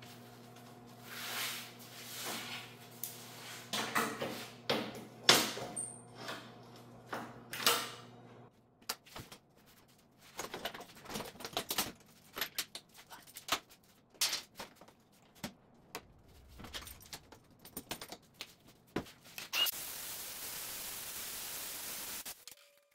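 Steel plates being shifted on a steel table and locking C-clamps being closed on them, giving irregular metallic clicks and knocks, with a low hum under the first several seconds. Near the end comes a few seconds of steady hissing grinding as the plate edges are ground.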